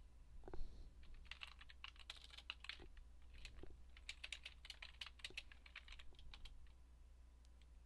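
Faint typing on a computer keyboard: runs of quick key clicks that stop about two thirds of the way through, over a steady low hum.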